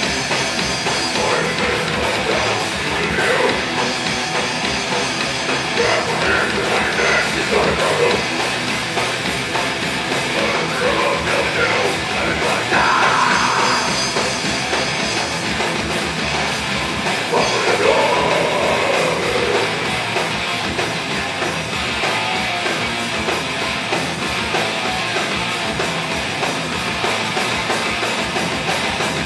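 A live metal band playing at full volume: electric guitars and a drum kit, with no break in the playing.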